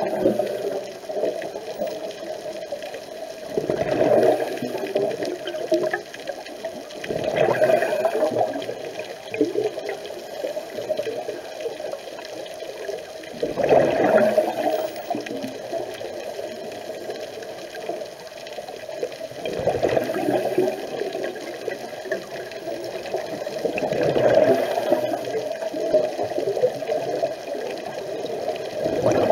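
Scuba regulator breathing heard underwater: a steady muffled rush with a louder burst of exhaled bubbles about every five seconds.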